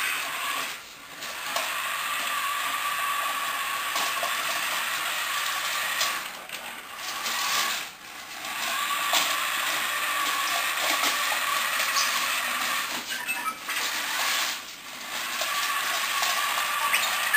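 Motors and gearing of an R2-D2 Interactive Astromech Droid toy whirring steadily as it drives about on patrol. The whirr stops briefly about five times as the droid pauses and turns.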